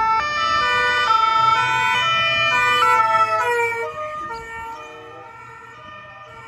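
Ambulance siren alternating between two tones. After about three and a half seconds its pitch drops and it fades as the ambulance moves away.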